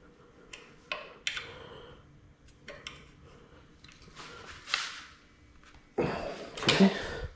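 Light metal clicks and taps of an Allen key turning a bolt into an electric dirt bike's plastic base plate, with handling and scraping between strokes. Near the end comes a louder stretch of rustling and knocking.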